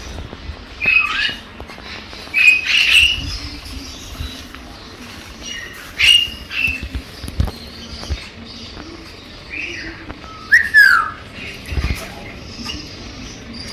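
Galah (rose-breasted cockatoo) calling: groups of short, shrill screeches a few seconds apart, several of them sliding down in pitch.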